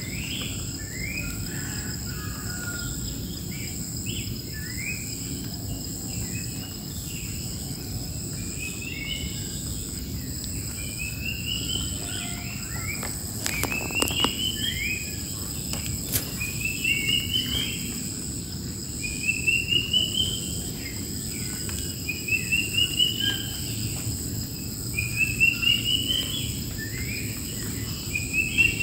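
Wild birds singing over a steady high-pitched insect drone. In the second half one bird repeats a quick rising phrase about every three seconds. Two sharp clicks come near the middle.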